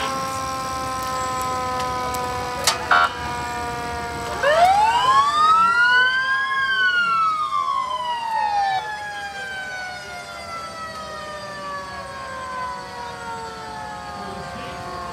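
Emergency vehicle sirens from fire trucks and an ambulance: a set of long tones slides slowly down in pitch throughout, and about four and a half seconds in a louder siren wail rises and then falls away. Two sharp knocks come a little before the wail.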